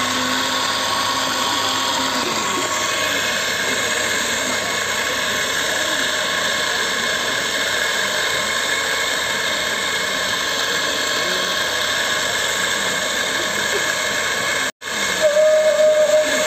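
Commercial doser-type coffee grinder running and grinding coffee beans: a steady motor whine over a grinding hiss. It drops out for an instant near the end, then comes back with a clearer steady tone.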